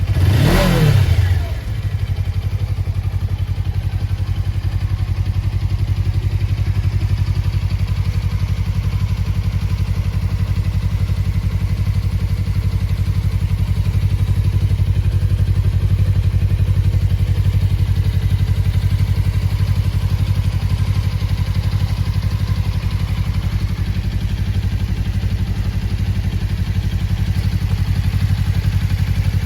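Suzuki V-Strom 250's 248 cc parallel-twin engine, exhaling through a Yoshimura silencer. It is revved once near the start, the pitch rising and falling back within about a second and a half, and then idles steadily.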